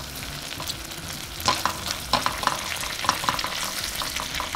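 Butter and minced sea urchin roe sizzling in a garlic cream sauce in a stainless steel pan, stirred with a spoon that scrapes and clicks against the pan at irregular moments.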